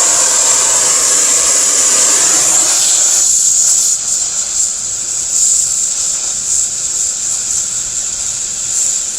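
A steady, loud hiss of rushing air, its lower tone dropping away about three seconds in.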